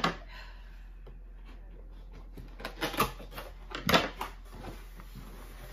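Cardboard box being handled on a counter: a sharp knock at the start, then a run of knocks, scrapes and rustles from about two and a half seconds in, the loudest about four seconds in.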